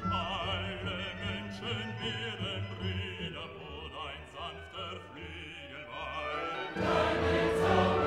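Background music in a classical, operatic style: a singing voice wavering in pitch over sustained accompaniment. About seven seconds in it swells, louder and fuller, with a choir.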